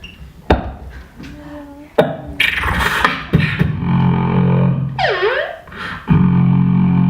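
Live beatboxing: two sharp percussive hits, then a dense run of vocal sound effects with a steady low buzzing bass held twice and a swoop that drops steeply in pitch and comes back up.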